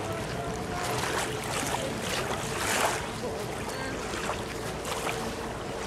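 Riverbank ambience: wind on the microphone and small waves lapping at the shore, with a faint steady hum underneath and soft swishes every second or so.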